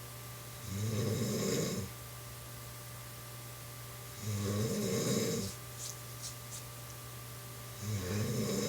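A woman snoring in her sleep: three snores about three and a half seconds apart, each lasting just over a second, over a steady low hum.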